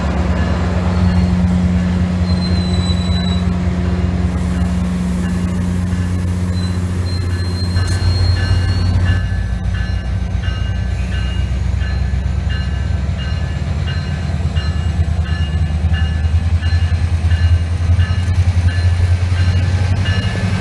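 Virginia Railway Express MP36PH-3C diesel locomotive running with a steady, loud low drone from its engine. A few faint high squeals come in the first half, and from about halfway a bell rings in even strokes, about one and a half a second.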